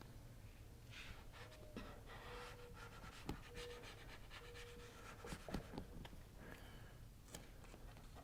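Faint handling noises from working a vinyl graphics decal onto a motorcycle panel: scattered light clicks and short rustles, with soft breathing close to the microphone.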